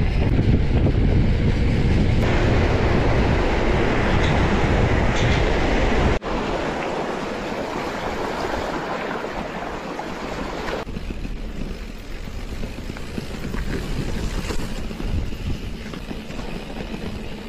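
Wind buffeting the microphone of a handlebar camera on a fast mountain-bike descent, then, after an abrupt cut about six seconds in, the quieter rumble of the bike's tyres rolling over rocks and gravel with small rattles and clicks from the bike.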